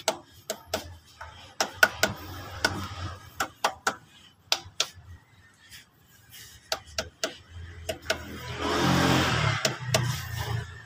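A plastic-faced hammer tapping a rear crankshaft oil seal into an aluminium engine housing, in quick irregular sharp taps that thin out after the first few seconds. The taps go round the seal's edge, hitting the spots that still stand proud so that it sits evenly flush and does not leak. Near the end, a louder machine noise swells for about two seconds.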